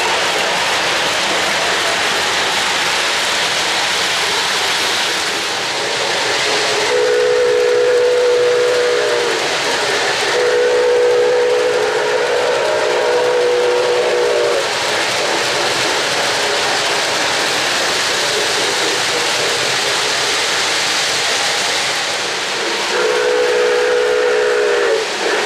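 O-gauge model trains running on three-rail track with a steady rushing sound, while a model steam locomotive's electronic chime whistle blows two long blasts about a quarter of the way in and another near the end.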